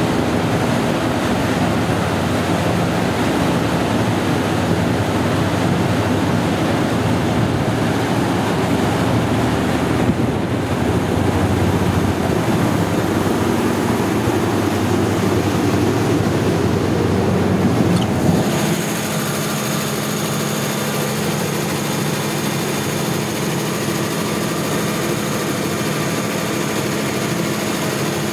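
Perkins diesel engine of a large FG Wilson generator set running steadily inside its enclosure. About two-thirds through, the sound turns a little quieter and a steady hum stands out more clearly.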